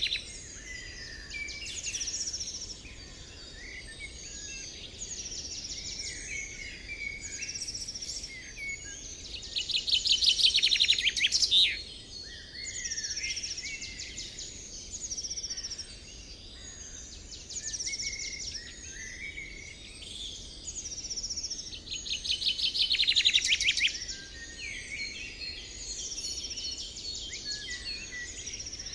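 Several small birds chirping and singing in a dawn chorus, with short whistled phrases throughout. A loud rapid trill comes about ten seconds in and again about twelve seconds later.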